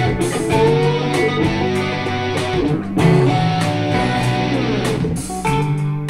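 A recorded music track with guitar and bass, played through KEF LS50 speakers and picked up in the room.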